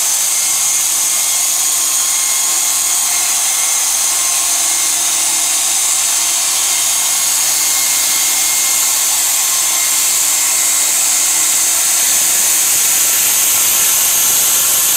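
Electric-motor-driven band sawmill blade cutting steadily through a log, a continuous, even, high-pitched noise that grows slightly louder near the end.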